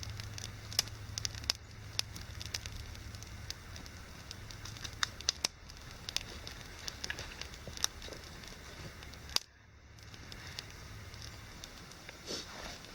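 Small campfire of damp wood burning, with irregular sharp crackles and pops over a steady low rumble.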